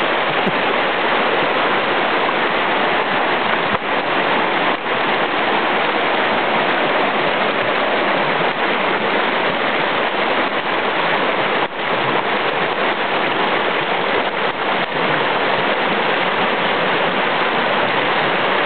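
Fast-flowing mountain river rushing over rocks: a steady, even roar of moving water.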